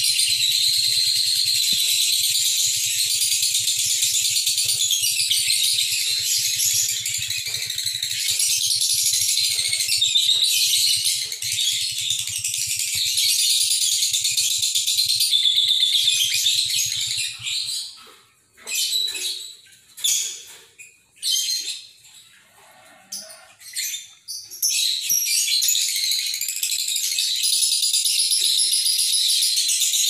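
Lovebird singing its long, fast, high-pitched chattering trill (ngekek). It runs unbroken for over half the time, breaks into short bursts with pauses, then runs on again near the end.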